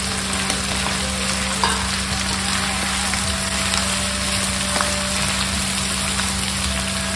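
Chicken pieces, onions and ginger-garlic paste sizzling in hot oil in a nonstick karahi, with a wooden spatula stirring and scraping through them.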